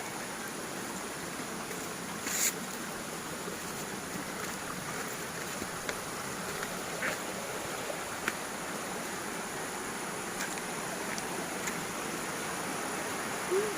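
Steady rushing water of a stream or small waterfall. A few brief sharp clicks cut through it, the loudest about two and a half seconds in.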